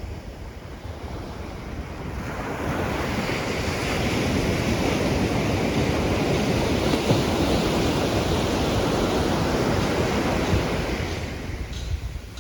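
Ocean surf: a wave rushes in, swelling from about two seconds in, holding loud for several seconds, then fading near the end.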